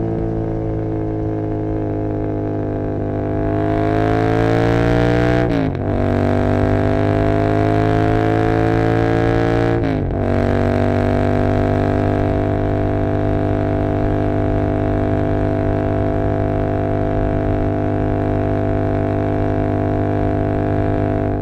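Royal Enfield Continental GT 650's parallel-twin engine through aftermarket Emgo cafe mufflers, pulling up through the revs under acceleration. It shifts up about five and a half seconds in and again about ten seconds in, each time dropping in pitch, then holds a steady drone at cruising speed.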